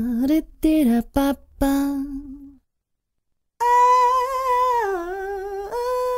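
A voice singing a run of short pitched syllables that stops about two and a half seconds in; after a second of silence, one long held note with a slight waver, dipping in pitch a little past five seconds in and rising back near the end.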